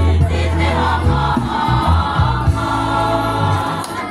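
A mixed school choir singing in parts over long, steady low bass notes; the song ends a little before the close.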